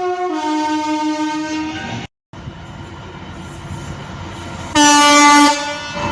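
Two-tone train horns sounding. A high-then-low horn call lasts about two seconds and breaks off abruptly. Train running noise follows, then a second, louder short horn blast near the end.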